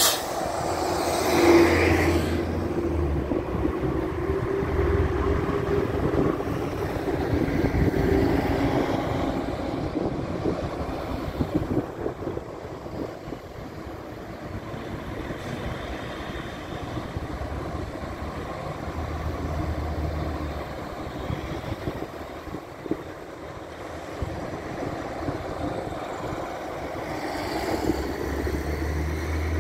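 City bus passing close by, its engine loudest about a second and a half in, then a steady hum fading away over the next several seconds. Road traffic follows, and near the end a tram approaches on the rails, the sound rising as it nears.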